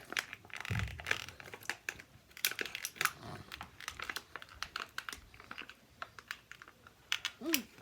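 Toy packaging being crinkled and handled as a toy is worked out of its box: scattered crackles and clicks with a dull thump about a second in. A brief child's vocal sound near the end.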